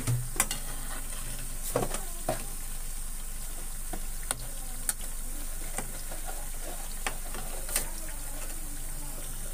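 Potato bites deep-frying in hot oil in a metal kadhai, a steady sizzle throughout. A perforated slotted spoon knocks sharply against the pan about half a dozen times as the bites are stirred.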